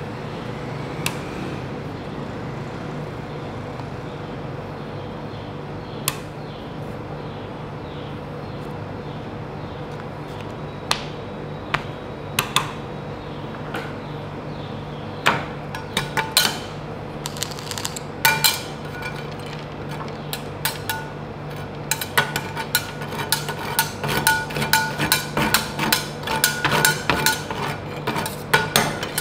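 Metal spatulas striking a frozen steel ice-cream-roll plate, chopping chocolate candies: scattered single taps at first, then a fast, steady run of clanks near the end. A steady low machine hum runs underneath.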